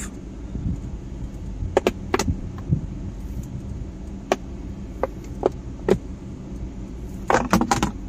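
Plastic trim clips clicking and snapping as the inner panel of a Mazda CX-5 center console lid is pried loose with a flat-head screwdriver. Single sharp clicks come a second or so apart, then a quick run of snaps just before the end as the panel comes free.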